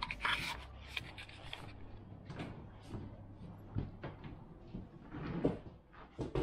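Scattered light knocks and clicks against a wooden table and chairs, over a low steady hum.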